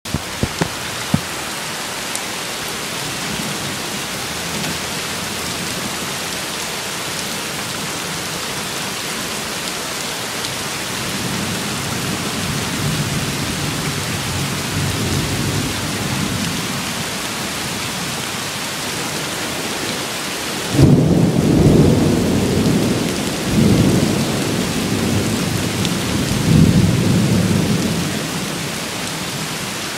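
Steady rain hiss with thunder: a low rumble builds in the middle, then a louder peal about two-thirds through that rolls on in several swells before fading. A few sharp clicks at the very start.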